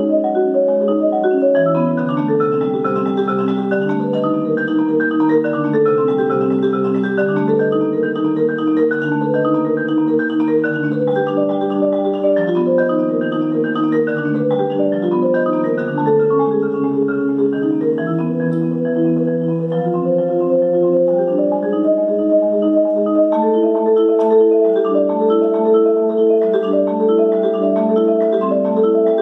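Solo marimba played with four mallets, two in each hand. It runs continuously in flowing, overlapping arpeggiated chord patterns at an even level.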